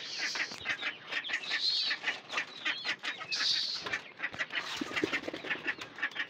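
Many small birds chirping rapidly and continuously, with a few brief higher hissing rustles.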